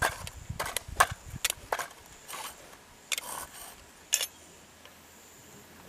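Hard objects being handled: a run of sharp clicks and knocks, loudest about a second in, dying away after about four seconds to a faint background.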